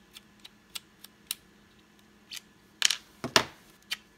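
Small metallic clicks and scrapes of a pocket-knife screwdriver working the clamp screw of a weapon light on a Glock pistol. About three seconds in come a few louder clacks as the light comes off the rail.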